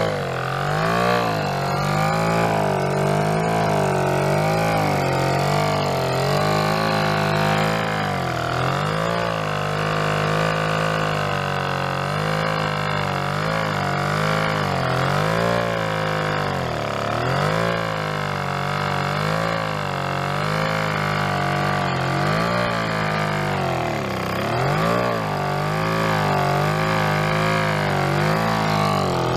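Small two-stroke engine running on hydrogen gas, its speed wavering up and down every second or two.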